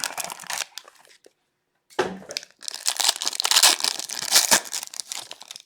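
Plastic wrapping on a sealed trading-card box crinkling and tearing as it is opened, in two spells with a short pause between them, the second longer and louder.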